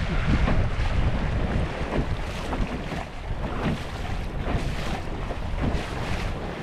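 Water rushing and splashing along the hull of a Sunfish sailboat moving under sail, with wind buffeting the microphone in a steady low rumble.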